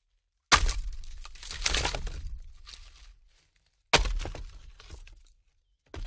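Logs being stacked, knocking and clattering against one another. A loud crash about half a second in rattles on for about two seconds, a second crash about four seconds in dies away over about a second and a half, and a shorter knock comes near the end.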